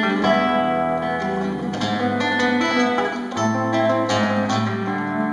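Classical guitar played solo: a run of picked notes ringing over low bass notes that change every second or two.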